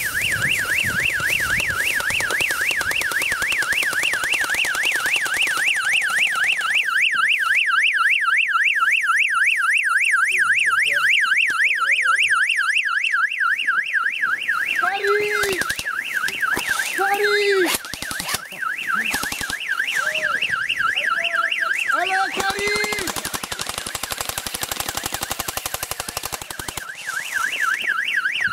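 Electronic alarm siren warbling rapidly up and down, about four sweeps a second, from the mock rocket prop in an airsoft game, going off to signal the rocket's launch. It dips somewhat late on, then comes back loud near the end.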